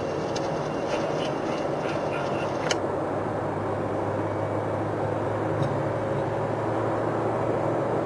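Steady road and engine noise of a moving car, heard inside its cabin, with a low, even hum. There are a few faint ticks in the first three seconds and one sharp click just before three seconds in.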